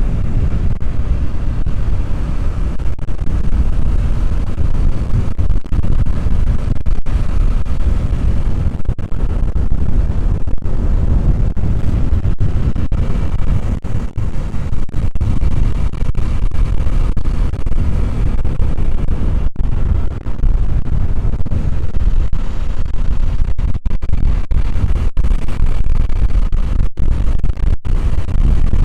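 Heavy wind rumble on the microphone while riding a motorbike, loud and steady with brief dropouts, with vehicle noise underneath.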